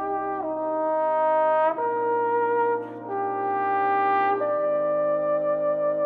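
Wind ensemble brass playing held chords that change about every second and a half, with a downward pitch slide about half a second in.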